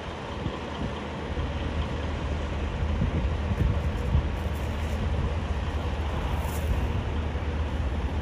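Diesel semi-truck engine running as the tractor-trailer pulls slowly across the yard, a steady low hum that grows a little louder about three seconds in.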